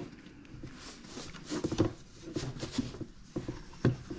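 Light clicks, taps and scraping knocks of a metal Hettich hinge-drilling jig being set down, slid and pressed into place against the edge of a wooden cabinet door, with a sharper knock near the end.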